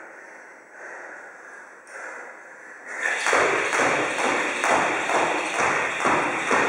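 Heavy breathing while resting, then about three seconds in a skipping rope starts: the rope slapping the floor and shoes landing in an even rhythm of about three taps a second.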